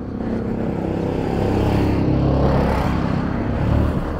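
Motor vehicle driving past close by on a paved street, its engine and tyres growing louder to a peak a little past halfway, then easing off.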